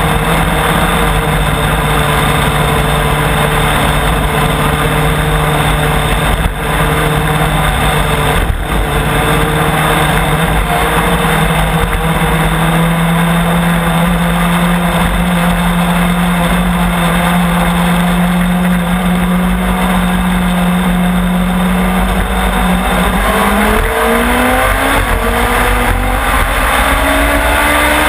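Onboard sound of a Legends race car's motorcycle-derived four-cylinder engine running at steady high revs with wind and road noise; for the last several seconds the revs climb steadily as the car accelerates. Two brief knocks come in the first third.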